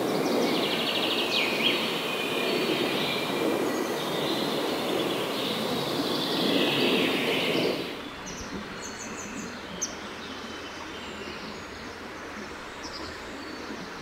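Outdoor birdsong ambience: several birds chirping and trilling over a steady rushing background noise. About eight seconds in the sound cuts to a quieter scene with a few sparse, high, short chirps.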